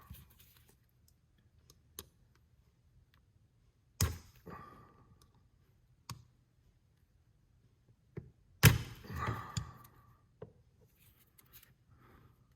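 Hard plastic clicks and knocks with brief scraping as Roomba brush parts are handled and a piece is worked at to get it out. There are four or five separate sharp knocks, the loudest about two-thirds of the way through.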